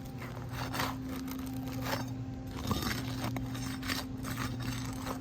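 Short scrapes and crinkles of an asphalt roof shingle being handled and bent, over a steady low hum.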